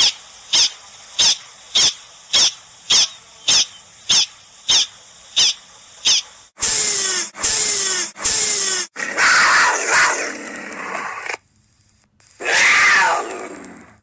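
Prairie dog giving a run of short, sharp alarm barks, about one every 0.6 seconds. After about six seconds it gives way to louder, longer animal calls that fall in pitch, followed by raspy, hiss-like calls with a short break near the end.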